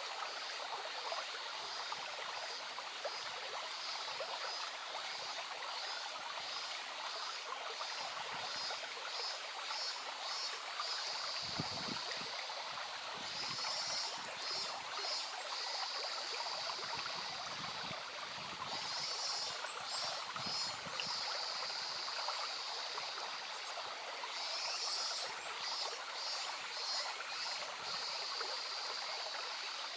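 A small stream babbling steadily. Several times, a run of high, rapid chirps from a small animal sounds over it.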